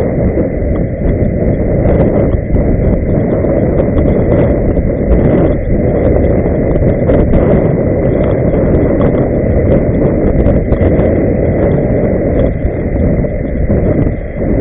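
Loud, steady rumble of inline skating: skate wheels rolling on pavement and wind buffeting the microphone, with a thin steady high tone throughout.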